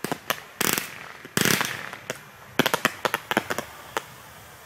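Fireworks going off: a run of sharp bangs and pops, with two short hissing rushes about half a second and a second and a half in, then a quick cluster of cracks around three seconds in.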